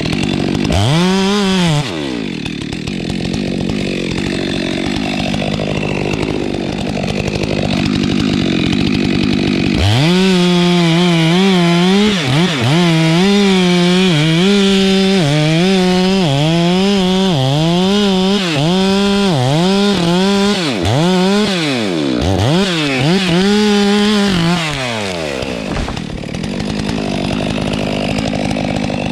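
Stihl MS462 two-stroke chainsaw at work felling a tree. It runs at a fairly steady lower pitch for the first few seconds, then the throttle is pulled and eased over and over, so the engine note rises and falls many times.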